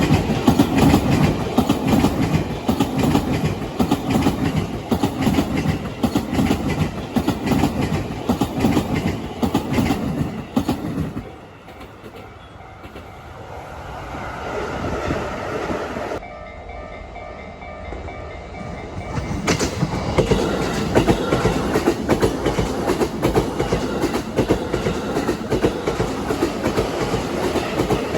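Freight train wheels pounding over rail joints in a loud, rapid clatter. The clatter fades away about 11 seconds in. A second stretch of loud joint clatter starts abruptly about 19 seconds in.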